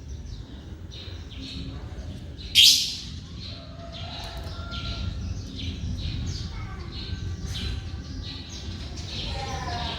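Birds chirping and calling in a busy run of short high notes, with one much louder, sharp call about two and a half seconds in, over a steady low hum.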